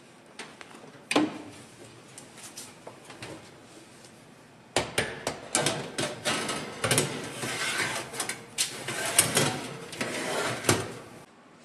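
A knock about a second in as the oven door is opened, then a metal baking tray scraping and clattering over the oven's rack as it is slid in, for several seconds.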